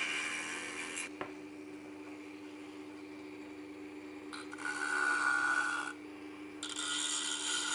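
Rotary tool with a sanding drum running with a steady hum, its drum rasping against wood in three spells: at the start, again around the middle, and from near the end on.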